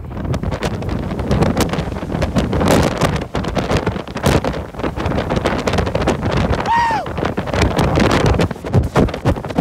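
Strong wind from a tornado blasting the microphone in rough, rapid gusts. A brief high-pitched tone rises and falls about seven seconds in.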